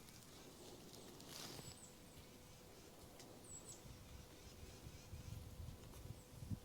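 Near-quiet woods ambience: a faint rustle about a second and a half in, one short high bird chirp in the middle, and a few soft low thumps near the end.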